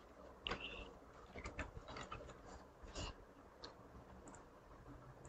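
Faint, irregular clicks of a computer keyboard and mouse: a handful of light taps spread through the few seconds.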